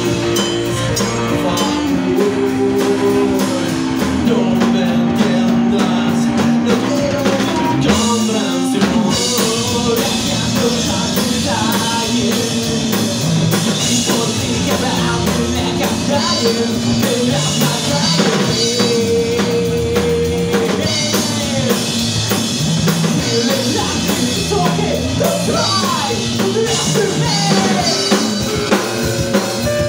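Live punk rock band playing: electric guitar, bass guitar and drum kit, with the cymbals crashing more fully from about nine seconds in.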